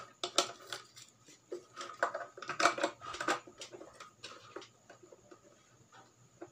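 Light plastic clicks, taps and rustling as a Bluetooth MP3 decoder board and its wires are handled and pressed into a plastic speaker housing; the taps come thick in the first four seconds, then thin out and grow faint.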